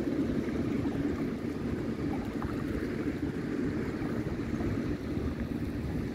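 Wind rumbling on the microphone over small waves lapping, a steady rushing noise with no distinct events.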